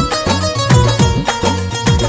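Instrumental passage of a dehati lokgeet folk song in a DJ remix: a steady beat of heavy bass drum hits that drop in pitch, under held keyboard tones, with no singing.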